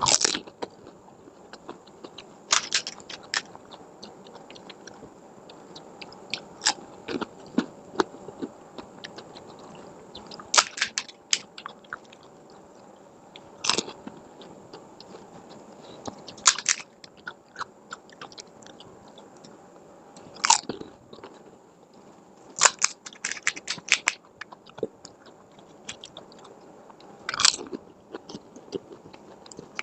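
Crisp fuchka (pani puri shells) being bitten and chewed, with loud crunches in clusters every few seconds between quieter chewing.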